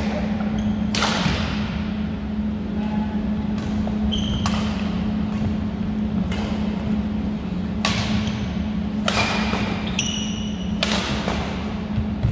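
Badminton rackets striking the shuttlecock in a rally: sharp hits every second or two, echoing in a large gym. Short squeaks of shoes on the wooden floor come between the hits, over a steady low hum.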